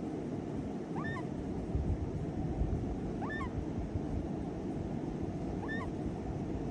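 Parrot chick giving short, soft rising peeps, three of them about two and a half seconds apart, over a steady low rumble.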